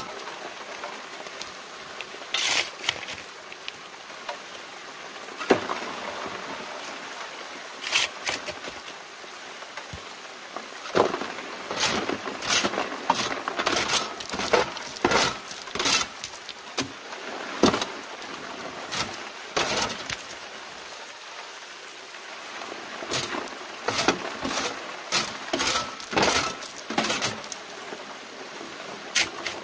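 Shovelfuls of gravel and stones dropping onto a metal sluice box's grizzly screen, clattering and scraping in irregular clusters, over the steady run of water through the sluice.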